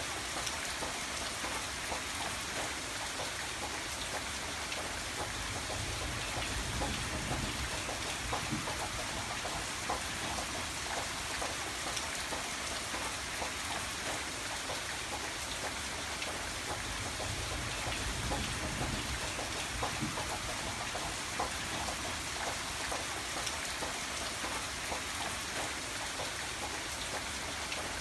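Steady rain falling, an even hiss dotted with many small drop hits, under a low rumble that swells and fades a few times.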